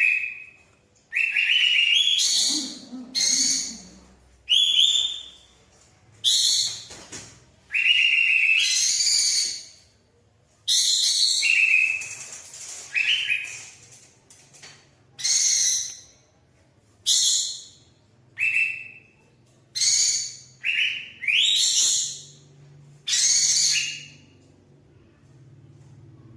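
Kapas tembak (olive-winged bulbul) calling: about fifteen short, loud, bubbly phrases, each under a second long and repeated every one to two seconds.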